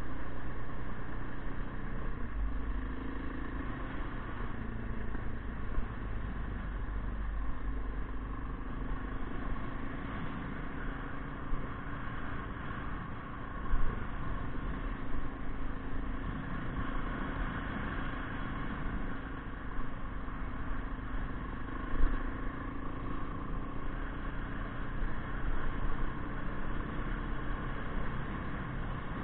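KTM motorcycle engine running steadily while riding a gravel road, with a low rumble of wind and road noise. Two sharp knocks stand out, one about halfway through and one later on.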